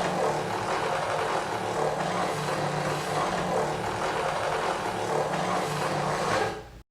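Edited Godzilla roar sound effect: one long, harsh, rasping roar at a steady level over a low droning pitch, cutting off suddenly near the end.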